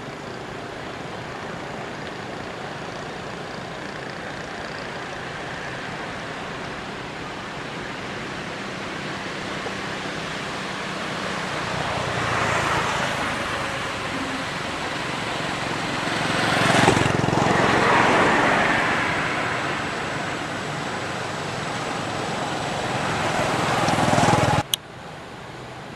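Outdoor traffic noise: road vehicles passing, swelling loudest about two-thirds of the way through and building again before cutting off abruptly near the end.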